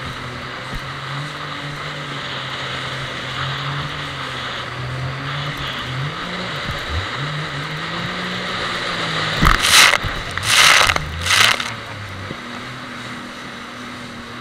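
Jet ski engine running at speed, its note rising and falling as the throttle changes, with a dip about six and a half seconds in. Water and wind hiss underneath. About nine and a half seconds in come three loud rushes of spray as the hull crosses waves.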